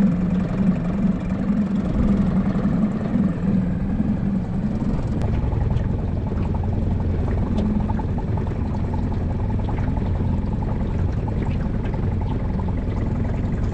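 Boat's outboard motor running steadily at trolling speed, with water noise around the hull. Its hum shifts lower about five seconds in.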